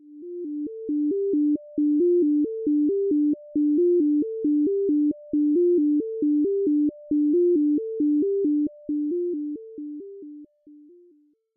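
Background music: a quick, repeating melody of short electronic notes bouncing around a low repeated note, fading out near the end.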